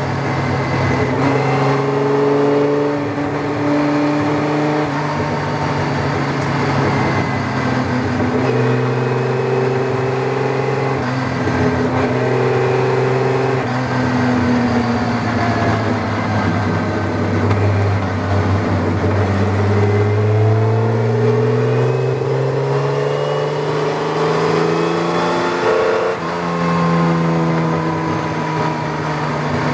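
Tojeiro Jaguar racing car's Jaguar straight-six engine under race load, heard from the open cockpit. Its pitch sinks through the middle as the car slows, then climbs again as it accelerates, with a brief break about three-quarters of the way through.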